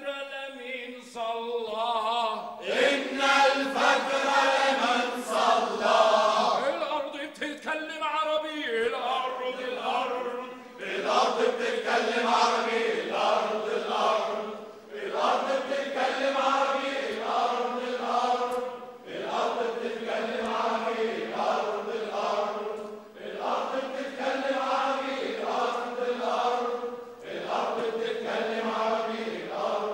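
A crowd chanting a protest slogan in unison, the same phrase repeated about every four seconds.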